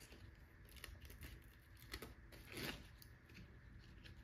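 Faint rustling and scraping of a metal-tape-covered strap being pulled through a plastic strap adjuster, with a slightly louder scrape a little past halfway.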